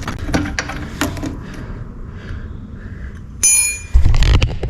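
Hand-tool work on a motorcycle brake caliper: light metal clicks, then a metal part or tool strikes and rings briefly about three and a half seconds in, followed by a few heavy, dull knocks.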